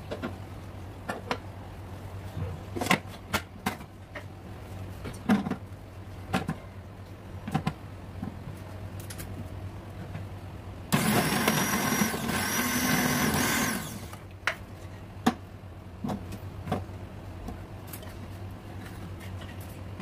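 Philips HR7520 food processor: scattered plastic clicks and knocks as its parts are handled, then the motor runs for about three seconds, starting about eleven seconds in, slicing a feed tube full of whole onions. More clicks follow after it stops.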